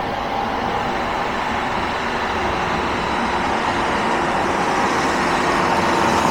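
Alfa Romeo MiTo 1.3 JTDM turbodiesel car driving, a steady mix of engine and road noise that grows slowly louder toward the end.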